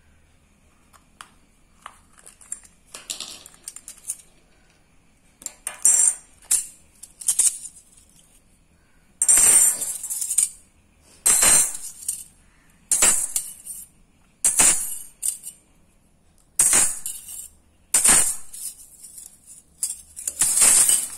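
Stainless steel shaping discs of a chakli (murukku) maker clinking and jingling against each other as they are handled. From about nine seconds in they come as a run of short, bright bursts about every second and a half, with softer clicks and rustles before that.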